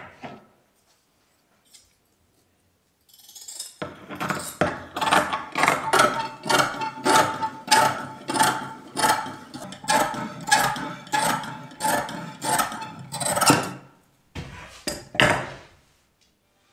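Scissors cutting fibreglass cloth in a long run of crisp snips, about two a second. They start a few seconds in and stop near the end, with two or three more snips after a short pause.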